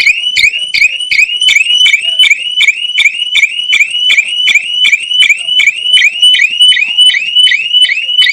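Electronic alarm horn of a homemade bicycle motion alarm sounding: a loud, shrill chirp that rises quickly in pitch and repeats about three to four times a second, without a break.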